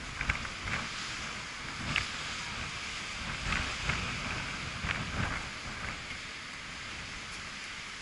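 Wind buffeting the microphone over a steady wash of ocean surf, with several short louder moments in the first five or six seconds.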